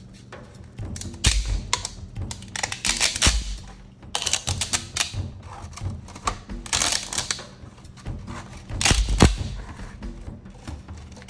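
A 3D-printed chainmail sheet being flexed and handled, its interlinked printed rings clattering against each other in several bursts of rapid clicks, the loudest near the end.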